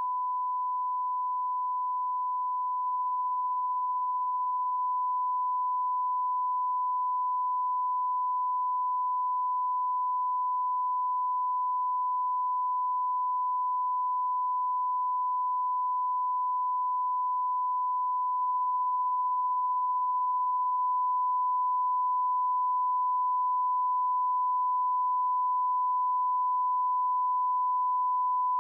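Steady 1 kHz reference test tone, the bars-and-tone line-up signal, held at one unbroken pitch.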